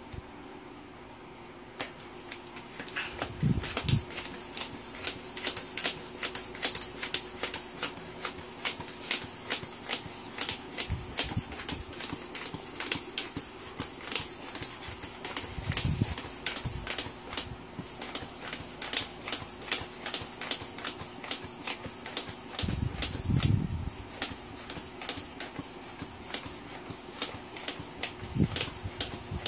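Hand floor pump inflating a bicycle tire through a hose clipped onto the valve: a quick, even rhythm of pump strokes, each a short sharp click and puff of air, with a few dull knocks along the way.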